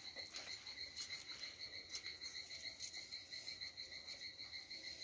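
An insect's steady, fast-pulsing trill, with a few faint light taps.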